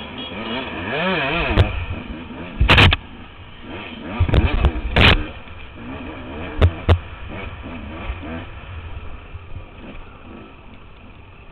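Dirt bike engine revving up and down as it is ridden along a rough trail, with several sharp knocks between about three and seven seconds in.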